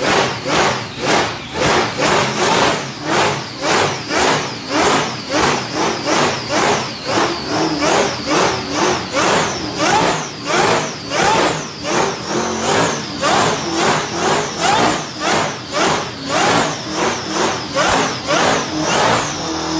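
Supercharged V8 engine revved in rapid, regular throttle blips, about two a second, with a high blower whine rising and falling with each blip.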